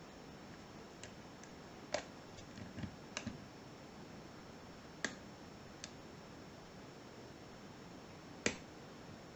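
Scattered sharp metal clicks from a lock pick and tension wrench working the pins of a 5-pin Sargent pin-tumbler lock during single pin picking, some seconds apart, the loudest near the end.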